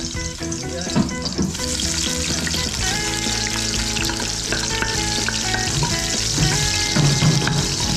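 Vegetables frying in hot olive oil in a pan: a steady sizzle that grows louder about a second and a half in, with a couple of short knocks near the start.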